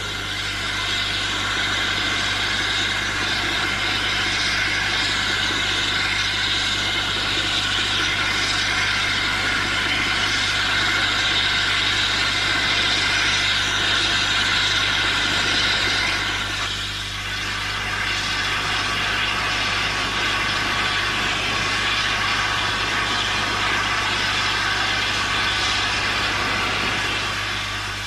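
Steam locomotive BR Standard Class 8 No. 71000 'Duke of Gloucester' giving off a steady, loud hiss of escaping steam, which dips briefly about two-thirds of the way through.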